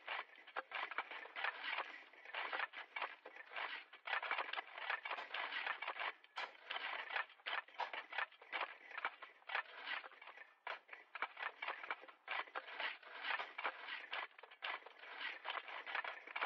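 Shovels digging at a distance: blades scraping and crunching into soil or gravel in a steady run of overlapping strokes, several a second, with no low thud.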